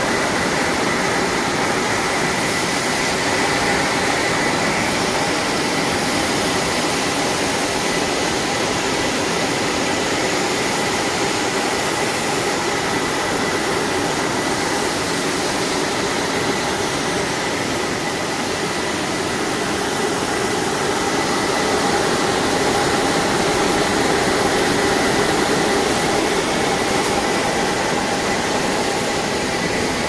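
Stainless steel air-bubble vegetable washing machine running: a steady rushing noise of its blower and bubbling water, with a faint high whine.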